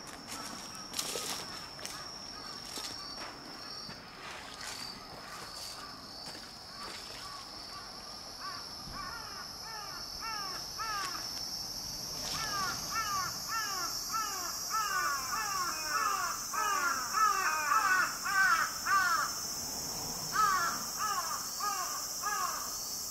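Crows cawing in a fast, overlapping series that grows louder after the middle, over a steady high-pitched insect drone. Footsteps on a dirt path in the first few seconds.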